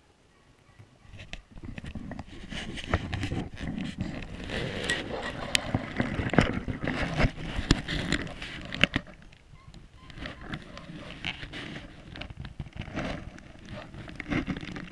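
Close rustling and scraping in dry leaves and brush, with many small crackling snaps, starting about a second in and easing off in the second half.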